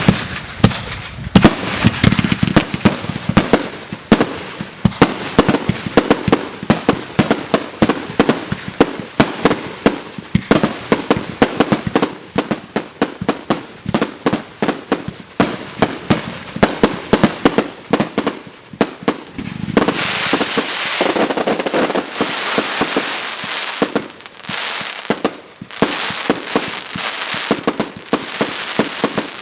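Fireworks going off in rapid succession: a dense string of sharp bangs and reports, several a second, with a stretch of hissing crackle about two-thirds of the way in.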